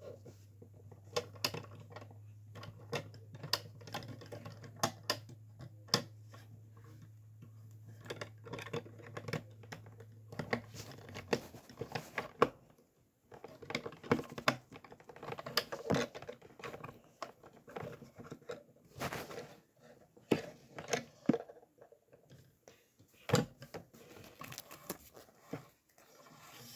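Plastic Lego bricks clicking and snapping together by hand during a build, with many irregular sharp clicks and some rustling of pieces.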